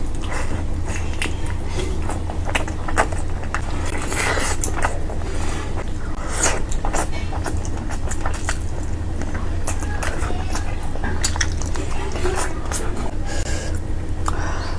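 Close-up eating sounds from a curry meal: irregular smacks, clicks and scrapes of chewing and of food and utensils on a plate. A steady low hum runs underneath.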